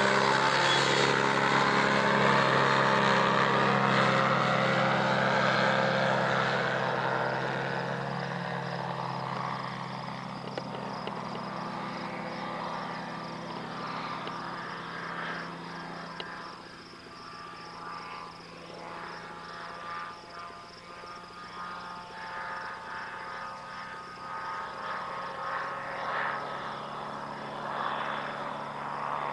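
Poor Boy ultralight's engine and propeller droning in a close fly-by. It is loudest at first, drops slightly in pitch as it passes, then fades over the following seconds as the plane flies away, its level wavering while it is distant.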